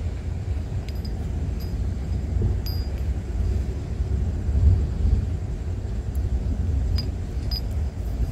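Wind buffeting the microphone, a steady low rumble, with a few light, sharp clinks scattered through it.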